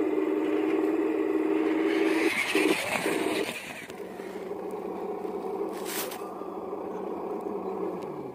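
Toy RC Volvo A40G articulated hauler driving over dirt with a full load of soil: its drive motor whines steadily while the tyres scrape and crunch on the soil. The whine stutters about two and a half seconds in, then carries on quieter.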